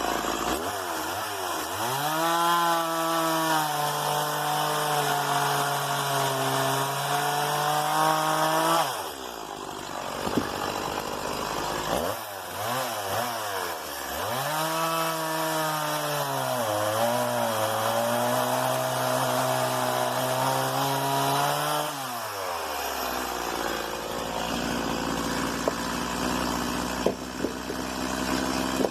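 Stihl MS 170 two-stroke chainsaw revved to full throttle for two cuts through wood, each about eight to ten seconds long, the engine note sagging slightly under load. Between the cuts and for the last several seconds it drops back to idle.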